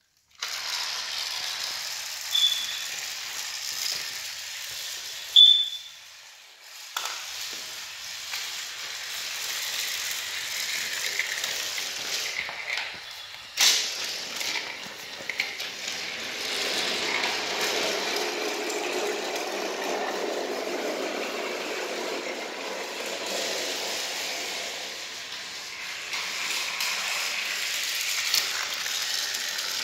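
Battery-powered Thomas & Friends Edward toy engine running along plastic track pulling a flatbed, its small motor and gears whirring with a steady rattle of wheels on the track. A sharp knock about five seconds in and a click a little before halfway stand out.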